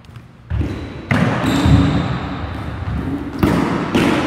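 Rubber dodgeballs thudding and bouncing on a hardwood gym court during play, in a loud jumble of noise that starts suddenly about half a second in, with a few sharp knocks.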